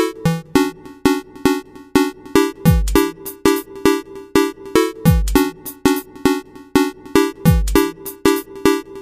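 Electronic background music with a steady drum-machine beat and a deep falling bass drop about every two and a half seconds.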